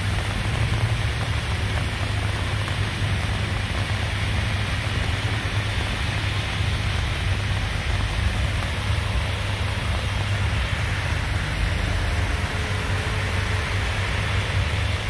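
Steady wash of rain and traffic on a flooded street, with a constant low rumble underneath.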